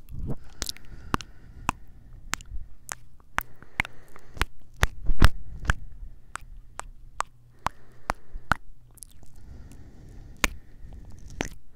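Wet kiss smacks made with the lips right against a recorder's microphone: sharp, irregular lip pops about two or three a second, with soft mouth noise in between.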